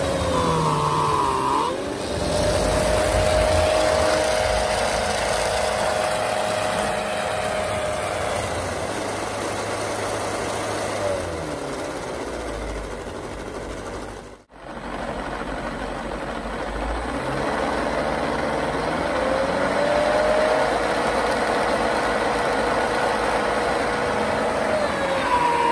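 Whine of an RC snowblower's 3660 brushless motor spinning the blower, over a rushing noise of snow being thrown. The pitch sags and recovers several times, and the sound drops out briefly about halfway through.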